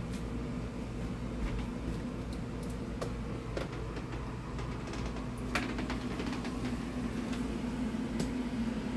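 Steady low hum of a running fan, with a few light clicks and knocks of handling.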